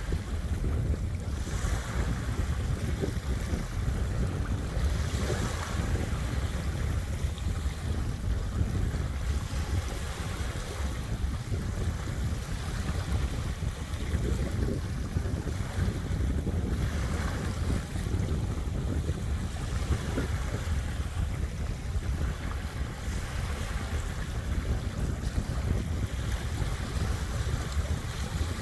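Small waves washing on a beach at ebb tide, rising and falling every few seconds, under a steady low rumble of wind buffeting the microphone.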